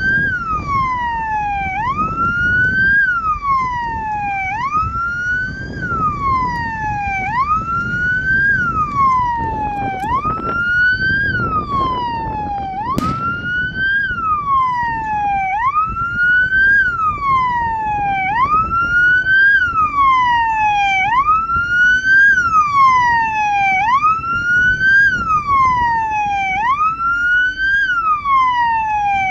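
Vehicle siren wailing, its pitch rising and falling in a steady cycle about every two and a half seconds, over a low rumble of background noise. A single sharp crack about thirteen seconds in.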